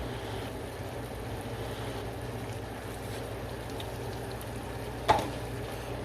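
Cornstarch-thickened sauce simmering in the pot over a steady low hum, with one brief sharp sound about five seconds in.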